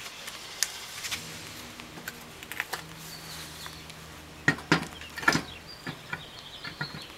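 Scattered metal knocks and clicks of a wheel and tire being hung on the hub's wheel-spacer studs and its lug nuts started by hand, with a cluster of sharper knocks a little past the middle.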